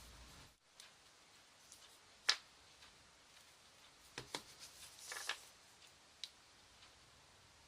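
A few sharp clicks and light taps over faint room noise. The loudest comes about two seconds in, and a quick cluster of clicks with a short rustle follows about four to five seconds in.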